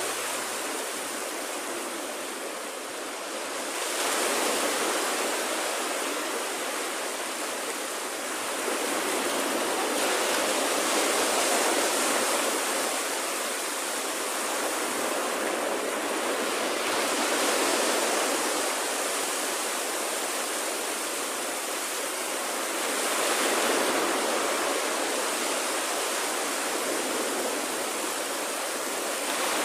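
Small waves breaking and washing up a sandy beach, the surf swelling and easing about every six seconds.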